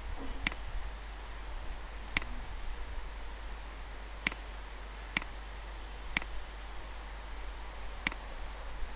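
Computer mouse button clicking: six sharp single clicks, one to two seconds apart, over a faint steady low hum.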